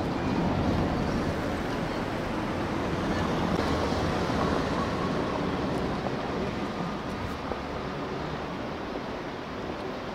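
Wind buffeting the microphone: a steady, rough rushing noise, heaviest in the low end, easing slightly near the end.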